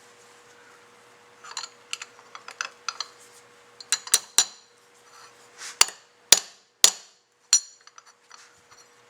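Metal hand tools striking metal parts: a few light clicks, then about six sharp, ringing metallic knocks at uneven intervals from about four seconds in, as when a freeze plug is tapped into a fuel pump's vacuum casting.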